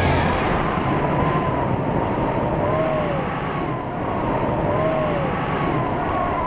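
Steady rushing wind noise, with faint tones that slowly rise and fall in pitch.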